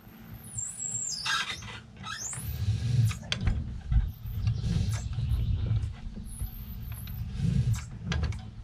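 Anchor rope hauled up by hand through a swivel pulley on a drift boat's anchor arm, raising a pyramid anchor. High, wavering squeaks come in the first couple of seconds, then low rumbling with scattered clicks as the line and anchor come up.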